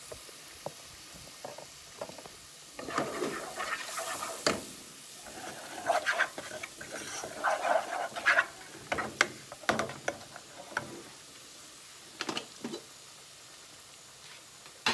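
Wooden spoons stirring and scraping seasoning in nonstick cooking pots, with irregular clicks and knocks of spoon against pan, over a faint sizzle of the seasoning frying. The stirring is busiest in the middle, and a couple of knocks follow near the end.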